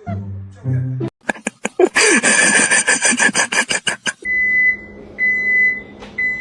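A few low bowed-string notes, then a loud burst of rapid clicks running into a dense scraping rattle, then a high electronic beep repeating about once a second, three times.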